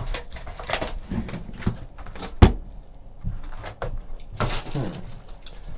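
Cardboard trading-card hobby box and its foil-wrapped packs being handled: rustling and crinkling, with one sharp knock about two and a half seconds in.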